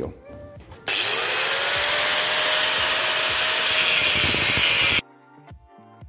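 Motorised rotary power tool cutting a shallow slot into a thick copper flat bar, so that the bar will bend at that spot. The motor's pitch rises as it spins up, then holds steady through the cut. The cut starts about a second in and stops abruptly about five seconds in.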